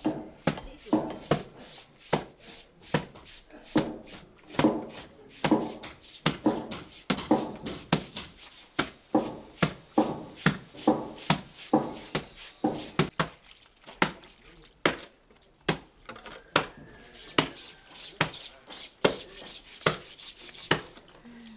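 Steady chopping: sharp knocks about two to three a second that thin out for a moment about two-thirds of the way through, with voices faintly underneath.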